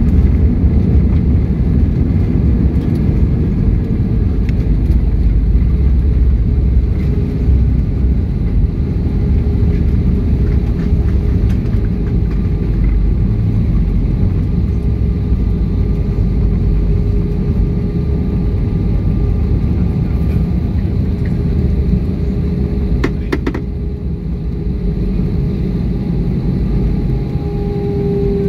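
Cabin noise of an Airbus A320-200 rolling out on the runway just after touchdown: a loud, steady low rumble from the engines and the wheels on the runway, with a steady hum running through it. The rumble eases a little after about 23 seconds, where two short clicks are heard.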